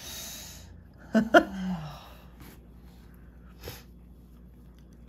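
A person breathes out through the nose, then gives a short nasal laugh about a second in: two quick bursts falling away into a low hum. A light tap follows in the middle.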